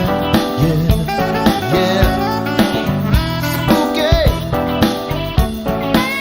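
Instrumental break of a rock song: a guitar plays bending lead lines over a steady drum beat.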